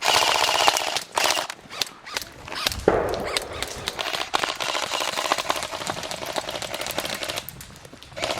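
Airsoft electric guns firing rapid full-auto bursts, a fast continuous clatter of shots that is loudest in the first second and dies down near the end.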